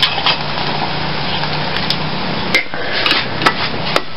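Hand-held can opener clattering against a can of sardines, with a few sharp metal clicks in the second half, over a steady hiss.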